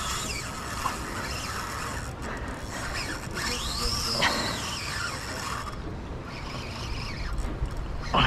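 Fishing reel working against a hooked fish, with a mechanical ratcheting from the reel gears. In the middle comes one whine that rises and then falls in pitch.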